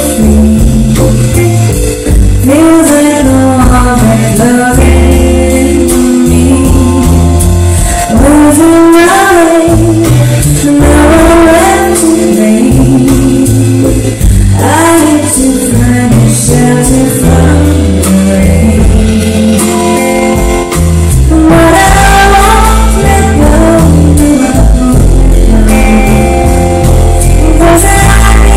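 Live band playing a song with a woman singing lead, sung notes sliding up and down over heavy bass, recorded very loud, close to the top of the level.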